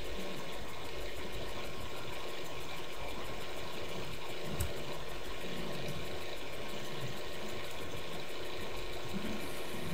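Steady background hum and hiss, with a single short click about halfway through.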